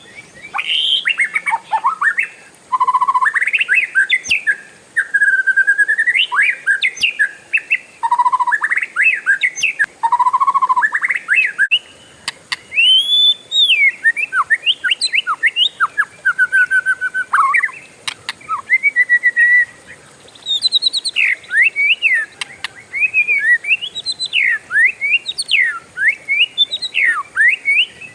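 Oriental magpie-robin (kacer) singing a long, varied song of whistles, rapid up-and-down sweeps and trills, broken by short pauses between phrases.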